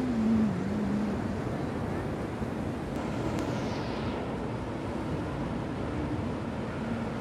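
Steady sea surf and wind noise on the microphone. A low, wavering pitched drone fades out about a second in.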